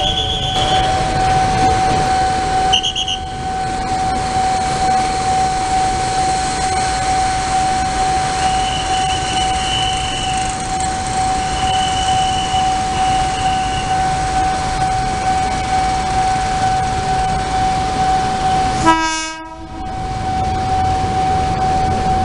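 Passenger trains running past: a steady rumble of rail noise under a constant humming tone. There are short high toots near the start and about three seconds in, and a brief loud horn blast about nineteen seconds in.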